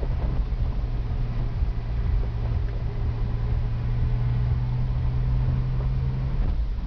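Car engine running steadily under a low rumble of tyres on a dirt road, heard from inside the cabin. The engine hum drops away shortly before the end while the rumble goes on.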